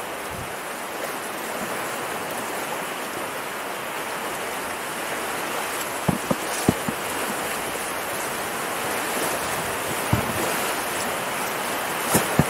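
Whitewater rapids rushing steadily around an inflatable packraft canoe, with a handful of brief knocks and splashes as it is paddled through.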